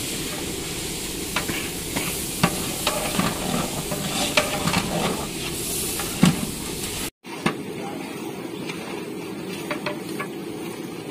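A long metal ladle stirring thick fish curry masala in a large aluminium pot over a fire: the masala sizzles steadily while the ladle scrapes and knocks against the pot in irregular clicks. The sound cuts out for an instant about seven seconds in, and the sizzle is softer after it.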